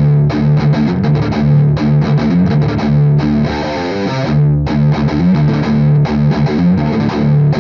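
Distorted electric guitar in drop D tuning playing a tight palm-muted riff of triplet hammer-ons and pull-offs on the low strings, ending with a pentatonic hammer-on and pull-off figure that bookends the riff.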